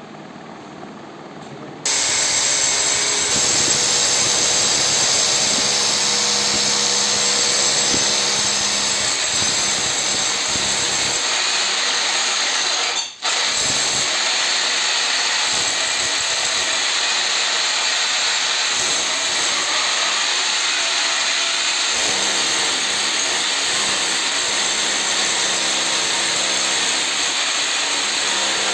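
Corded electric drill boring into a brick wall. It starts about two seconds in, runs steadily and loudly, and stops for a moment about halfway through.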